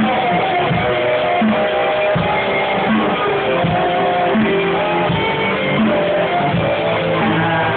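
Rock band playing: drum kit with regular kick and snare hits under two guitars and a bass guitar.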